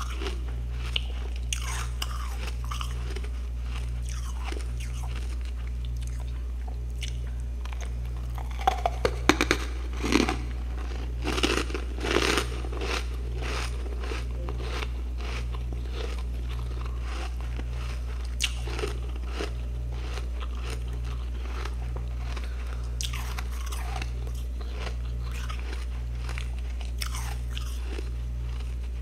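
Close-up crunching and chewing of freezer frost ice, many sharp crunches with the loudest flurry about nine to thirteen seconds in, over a steady low hum.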